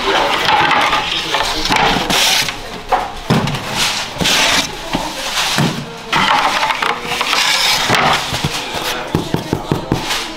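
A wooden bread peel scraping along the floor of a wood-fired oven, with fresh loaves knocking into a wooden crate, in several noisy rushes. Near the end comes a run of quick sharp crackles as a fresh-baked loaf's crust is handled close up.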